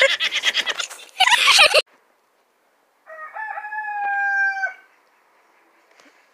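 A loud, noisy burst with rapid clicks that cuts off suddenly, then, about a second later, a rooster crowing once: one held, nearly flat call of almost two seconds, edited in as a sound effect.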